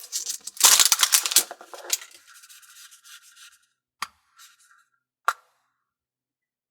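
Crinkling and rustling of a Mash'ems toy's packaging being torn and opened, followed by two sharp clicks.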